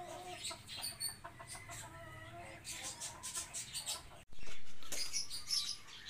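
Domestic chickens clucking, with short chirping bird calls. About four seconds in, the sound drops out for an instant and comes back louder.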